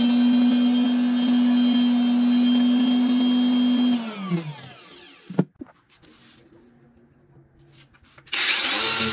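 Router mounted in a router table running at a steady high whine while cutting into a log round; about four seconds in it is switched off and its pitch falls as it spins down. After a short quiet gap, an angle grinder with a carving burr starts up near the end.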